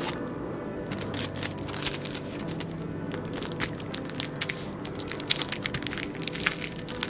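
Clear plastic sleeve crinkling and crackling in quick, irregular clicks as stickers and a backing card are handled and packed into it, over background music.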